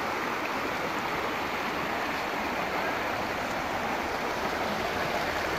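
Shallow river water running over and around rocks, a steady rushing.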